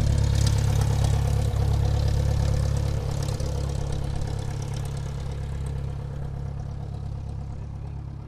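Airplane engines running at low power while taxiing: a steady low rumble with a constant hum, slowly getting quieter from about three seconds in.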